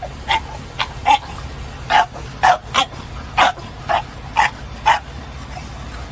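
A dog barking over and over, about ten short barks roughly two a second, over a steady low rumble.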